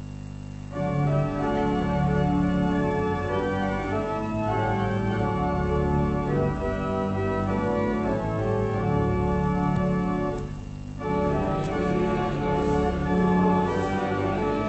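Church organ playing a hymn tune in steady held chords, coming in about a second in, with a short break about ten seconds in before it carries on.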